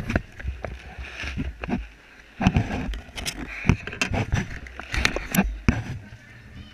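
Rustling, bumps and frequent sharp knocks on a chest-strapped GoPro as the small child wearing it moves and reaches about at a wooden table, with a low rumble of handling noise.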